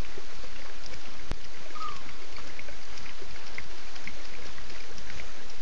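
Steady, even hiss of night-time ambience at a bush waterhole, with scattered faint high chirps. There is a single short falling call about two seconds in, and a brief click just before it.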